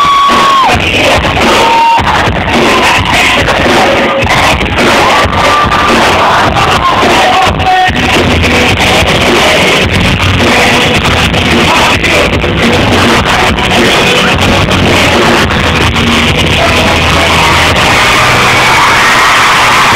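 Live rock band playing with a singer holding long notes, recorded very loud and close to full level by a phone's microphone.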